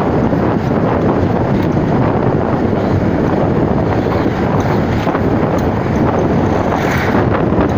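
Steady wind noise buffeting the microphone, with the low rumble of a vehicle in motion underneath.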